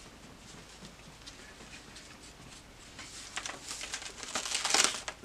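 Paper rustling and crackling as a page of a spiral-bound junk journal is turned by hand, building over the last two seconds to its loudest just before the end.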